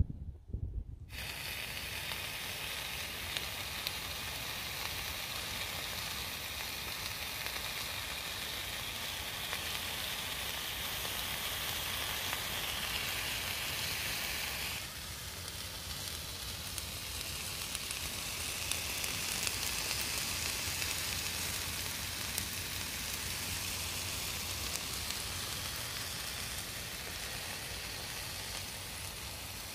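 Chicken pieces with onions and peppers sizzling as they fry in a pan on a gas-canister camping stove. The steady sizzle starts about a second in and drops a little in level about halfway.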